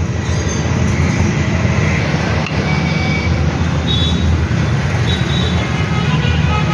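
Road traffic noise: a steady engine rumble from vehicles running, with a few brief high tones.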